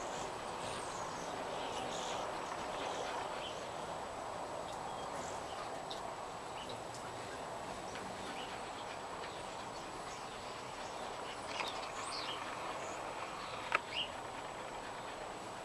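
Small birds giving scattered short, high chirps and twitters over a steady outdoor background hum, with two sharper chips close together near the end.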